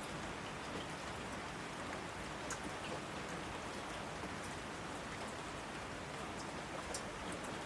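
Steady rain falling, with individual drops ticking now and then, a couple of sharper drip hits about two and a half seconds and seven seconds in.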